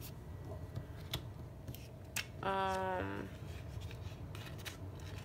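Hands handling sheets of coloured cardstock and a plastic laminating pouch on a tabletop: light rustling and scattered small clicks of paper and plastic. About halfway through, a woman briefly hums one short note.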